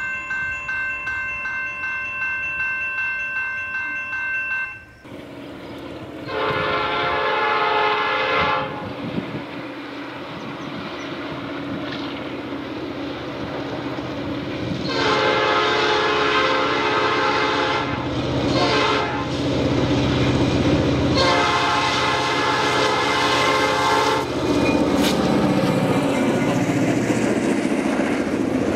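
A railroad crossing bell ringing quickly and steadily, cut off about five seconds in. Then an approaching diesel freight locomotive sounds its air horn in the grade-crossing pattern of long, long, short, long, while the rumble of its engine and wheels grows louder.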